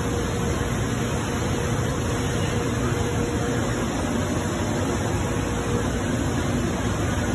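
Haas VF-2SS CNC vertical milling machine running: a steady, even machine noise with a faint constant hum.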